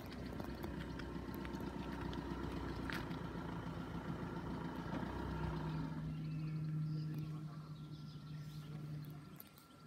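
A motor vehicle's engine running steadily at low revs, first a low hum, then a steadier drone from about five seconds in that fades just after nine seconds. A faint steady high tone runs underneath.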